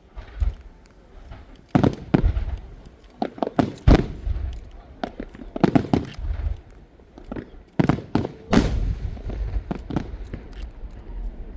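Aerial firework shells bursting overhead: a string of sharp booms and cracks at irregular intervals, each with a deep rolling rumble. The loudest bursts come about four and eight and a half seconds in.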